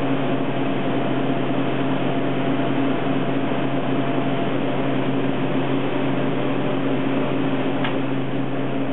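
Steady hum and fan noise of running flexographic plate-making machinery, a low drone that holds level throughout.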